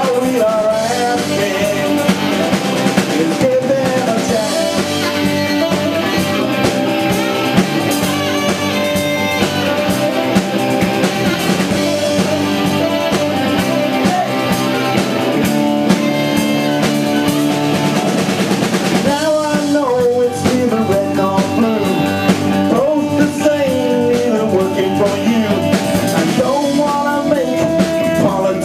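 Live rock band playing: electric guitars over a drum kit, loud and full. A bending lead melody comes forward about two-thirds of the way in.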